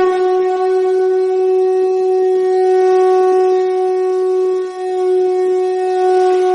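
A conch shell (shankha) blown in one long, steady note, with a brief dip about two-thirds of the way through before the note carries on. It is sounded as the traditional opening call of a Hindu devotional piece.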